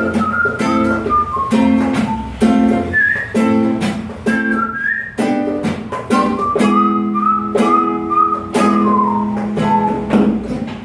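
Acoustic guitar played in a steady rhythm of short strummed chords, about two a second, with a whistled melody above it that rises and falls.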